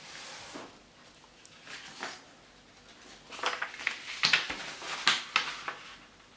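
A sheet of copy paper being folded and creased by hand: scattered rustles, then a dense run of sharp crinkling and rubbing crackles as the fold is pressed flat, loudest past the middle.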